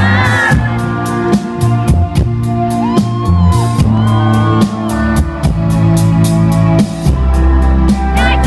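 Live rock band playing a song, with a drum kit keeping a steady beat over sustained bass and guitar.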